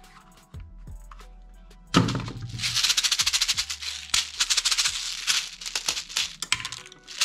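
A plastic toy grenade full of small beads shaken hard, a dense rattle starting about two seconds in and lasting about four seconds. Background music plays underneath.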